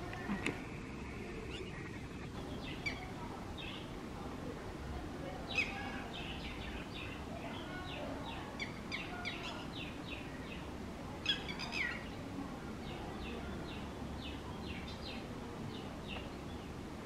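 Red-wattled lapwing calling in runs of short, sharp, high notes, several a second, with two louder calls about five and eleven seconds in: the alarm calling of a parent guarding its chick.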